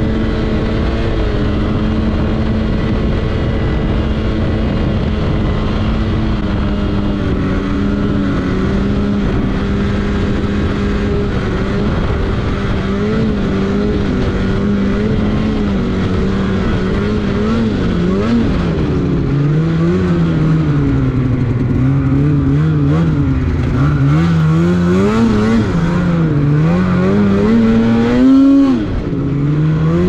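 Snowmobile engine running at trail speed. Its pitch holds steady for the first half, then rises and falls with repeated throttle changes, dropping briefly near the end.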